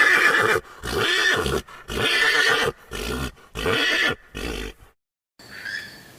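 An equine animal calling: a run of about six harsh, pitched calls separated by short pauses, the first the longest and loudest, the later ones shorter and fainter, stopping a little before five seconds in.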